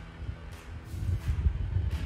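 Wind buffeting the camera microphone: an uneven low rumble that comes and goes in gusts, with brief rushes of hiss.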